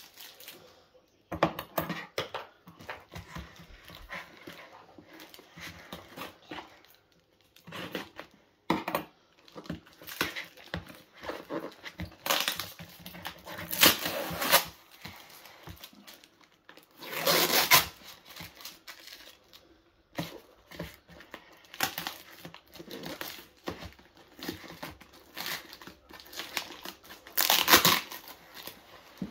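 Plastic packing tape being ripped and peeled off a cardboard box, with crinkling as the strips are crumpled and the cardboard flaps are handled. It comes in irregular rustles, with a few longer, louder rips near the middle and near the end.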